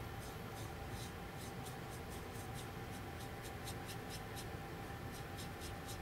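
Small paintbrush stroking and dabbing paint onto a cutout bird shape: a run of soft, scratchy brush strokes, roughly three a second.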